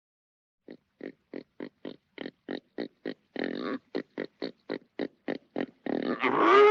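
A pig grunting in a rapid, even series of short grunts, about four a second. Near the end comes a longer, louder call with its pitch sliding up.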